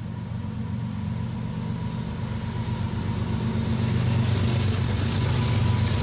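Low, steady rumble of a vehicle running, growing gradually louder, with a faint steady whine above it.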